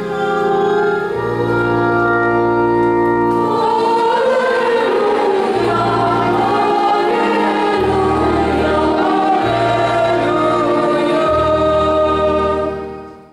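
Women's choir singing a church hymn with electronic organ accompaniment: sustained organ chords over changing bass pedal notes, with the voices strongest from about four seconds in. The sound fades out at the very end.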